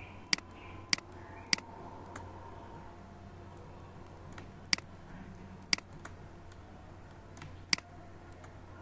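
Computer mouse button clicking about six times at uneven intervals, each a short sharp click, over a faint steady low hum.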